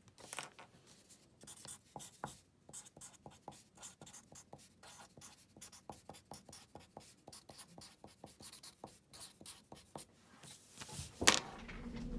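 Felt-tip Sharpie marker writing on a sheet of paper on a wooden desk: many short, quick scratching strokes as letters are drawn. About 11 seconds in there is a single sharp knock as the marker is put down on the desk.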